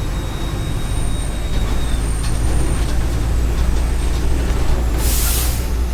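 Mercedes-Benz OF 1418 bus's four-cylinder turbodiesel running steadily, with a thin high whine over the engine drone. About five seconds in, a short hiss breaks out for about half a second.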